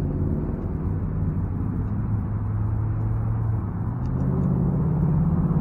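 A motor vehicle engine running with a low, steady drone that rises in pitch and gets slightly louder about four seconds in.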